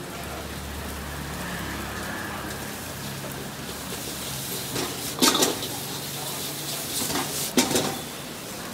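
Noodles sizzling and frying in a hot wok, with two sharp metal clangs of the ladle against the wok, about five seconds in and again near the end.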